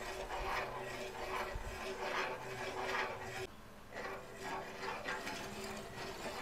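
A spatula scraping around the bottom of an uruli in repeated stirring strokes, roughly one a second, with a short pause about three and a half seconds in, as the jaggery and brahmi mixture is cooked down until thick.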